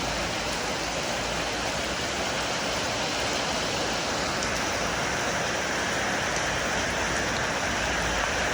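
Heavy rain pouring steadily, a dense even hiss of falling water.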